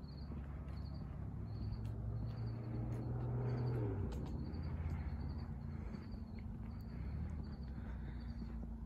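Crickets chirping steadily, about three chirps every two seconds, over a low engine hum from a vehicle that swells and drops in pitch about four seconds in. Light footsteps on pavement sound now and then.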